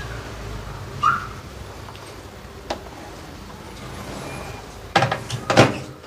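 Hands settling the grill-fry plate and rack inside a Samsung grill microwave oven, with a brief high tone about a second in, then a cluster of knocks near the end as the oven door is shut.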